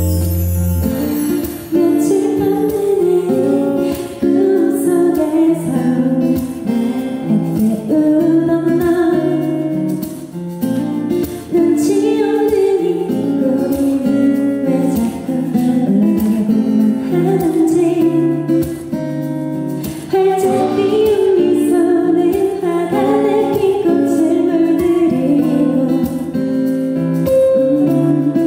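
A woman singing a Korean pop ballad into a microphone, with guitar accompaniment.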